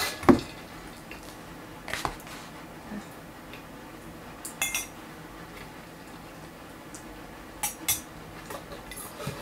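A metal spoon clinking against a tea cup a handful of times, the loudest knock just after the start and a quick pair of clinks near the end.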